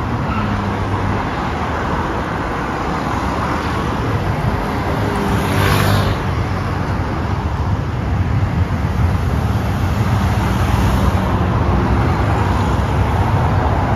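Road traffic: cars driving past one after another, one passing close about six seconds in, and the traffic getting louder in the second half.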